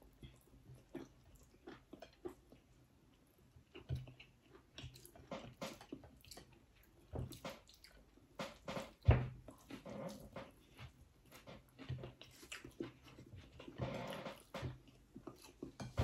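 Eating sounds: chewing and lip smacking, with scattered small clicks and light taps on plates, and one louder knock about nine seconds in.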